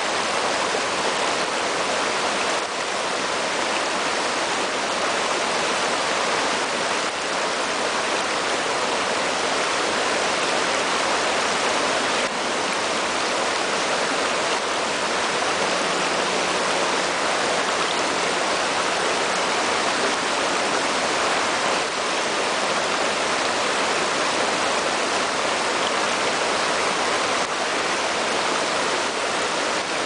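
Shallow river running fast over and around rocks in small rapids: a steady, even rush and babble of water that does not change.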